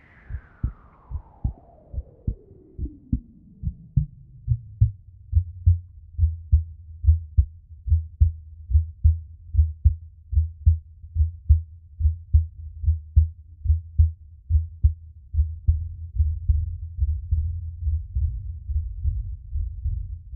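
Soundtrack sound design: a low, heartbeat-like thumping pulse, about two beats a second. A falling tone sweeps down and fades in the first few seconds, and a low drone comes in under the beats about four seconds in and grows louder toward the end.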